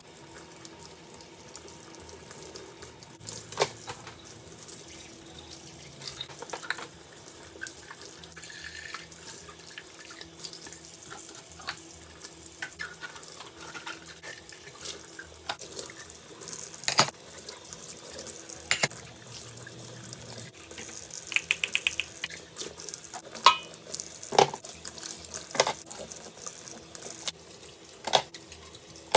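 Water running from a tap into a kitchen sink while things are handled and washed, with repeated clinks and knocks, including a quick rattle about three-quarters of the way through.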